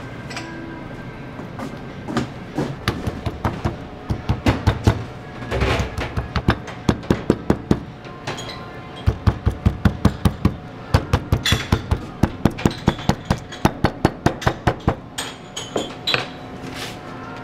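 A metal meat tenderizer mallet pounding stacked raw pork slices on a cutting board. Quick, even strikes come at about four a second in two long runs, with a short pause near the middle.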